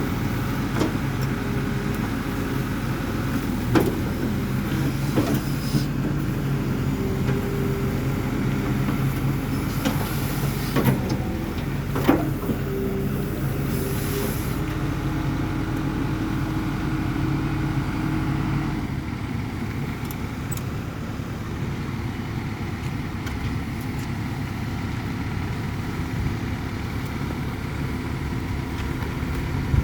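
Excavator's diesel engine running steadily under work, with several sharp knocks and a brief hiss. About two-thirds of the way through it drops to a lower, quieter run.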